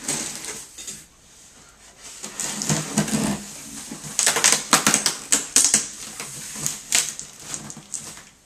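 Cardboard box and packaging being handled and opened: bursts of rustling and scraping, then a quick run of sharp crackles and clicks.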